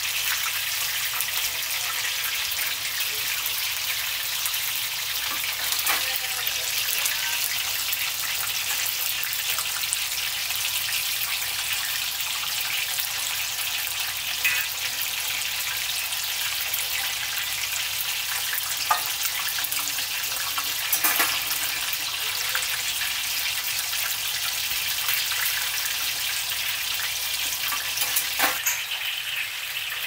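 Tempura batter deep-frying in hot oil: a steady, dense sizzling crackle, with a few sharp clicks scattered through it.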